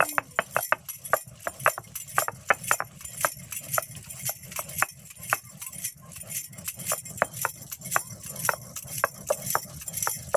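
Stone roller knocking and grinding on a flat grinding stone (sil-batta) as garlic, dried red chillies and cumin are crushed into masala, with irregular knocks a few times a second. Glass and metal bangles clink on the wrists with each stroke.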